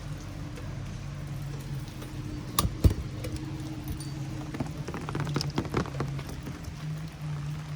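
Rain pattering, over a steady low hum. Two loud sharp taps come a little before three seconds in, and a cluster of smaller taps follows between about five and six seconds in.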